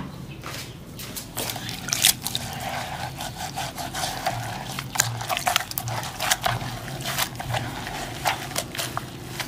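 Hands squeezing and rubbing wet turmeric soap shavings in water, working up a lather: a run of short, irregular wet clicks and rubbing against the bowl.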